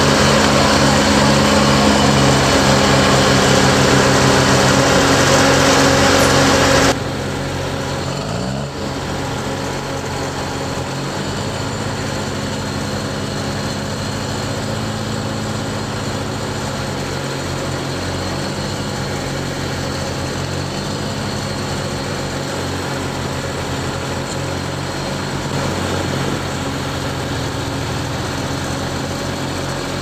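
Diesel engine of a Link-Belt crane running steadily while it works a hanging pile. It drops suddenly in level about seven seconds in, then runs on with its pitch rising and falling a few times.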